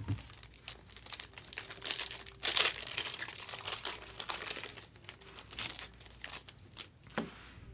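Crinkling and crackling of plastic or foil trading-card packaging being handled, loudest about two to three seconds in.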